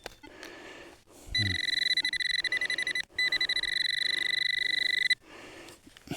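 Metal detecting pinpointer probe giving a loud, fast-pulsing high-pitched buzz twice, about two seconds each with a short break between: it is sounding on a metal target in the dug soil.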